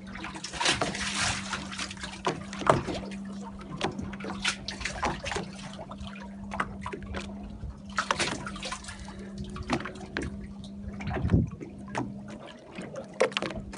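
Water splashing and sloshing with irregular sharp splashes and knocks, over a steady low hum that stops near the end.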